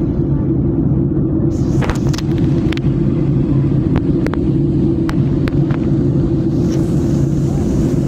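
Airliner cabin noise heard from a window seat: a loud, steady, low drone of engines and airflow. A few light clicks come between about two and six seconds in.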